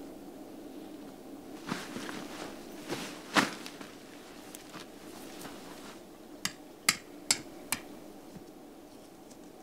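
Scattered hard knocks and taps, the loudest about three and a half seconds in, then four sharp clicks in quick succession about two-thirds of the way through, over a faint steady background.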